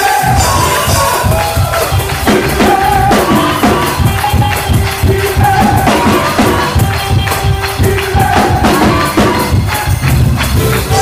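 Live gospel music: a drum kit and a jangling tambourine keep a fast, steady beat under held melody notes.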